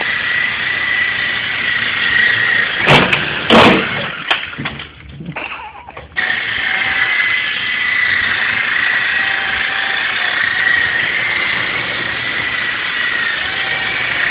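Small electric motor and rotor of a toy RC Apache helicopter running with a steady high whine. About three seconds in come two sharp knocks and the whine falls away, then a little after six seconds it cuts back in suddenly and runs steady.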